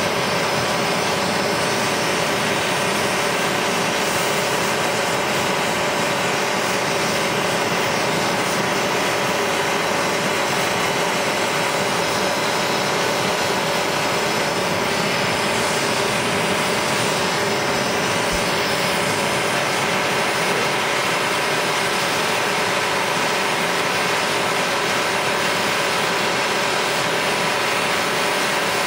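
Hand-held propane torch burning with a steady, loud hiss while heating cast aluminum for aluminum soldering.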